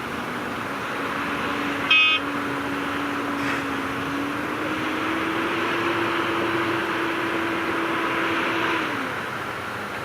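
Heavy diesel engine of earthmoving machinery running under load: its pitch rises about halfway through, holds, then drops near the end. About two seconds in there is a single brief, loud, high-pitched blip.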